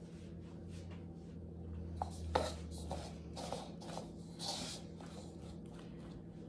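Faint scraping, rubbing and light clicks of kitchen utensils and dishes being handled, over a low steady hum that stops about halfway through.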